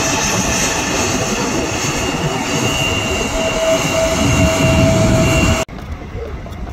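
Bombardier CRJ-900's rear-mounted turbofan engines running as the jet taxis past: a steady jet roar with a whine at two pitches, growing louder about four seconds in. It cuts off abruptly near the end to a much quieter background.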